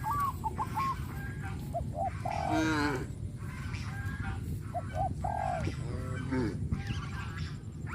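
Cattle mooing: a run of separate calls one after another, some short and some longer with a falling pitch, over a steady low background noise.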